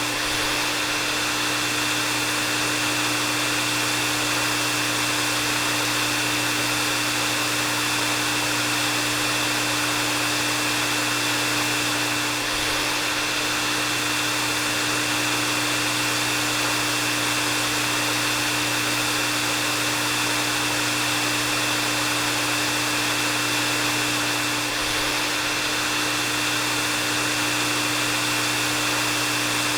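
Electric hair dryer running steadily: a constant rush of blown air with a low motor hum and a high steady whine, dipping slightly about every twelve seconds.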